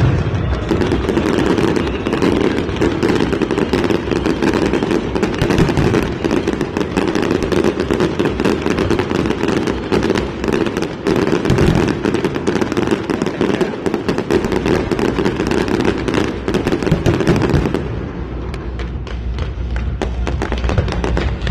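Fireworks display going off nonstop, a dense crackle of many bursts and pops layered over each other. The crackle thins out near the end.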